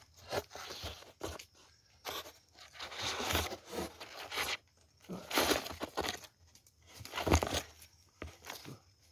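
Machete blade digging and scraping into tough soil around turmeric roots among the plants' leaves: a run of about five rough, crunching scrape strokes, each up to about a second long.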